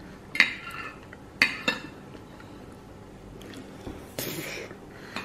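Metal spoon clinking and scraping against a ceramic plate while the last of the food is scraped up, with three sharp clinks in the first two seconds and a short scrape about four seconds in.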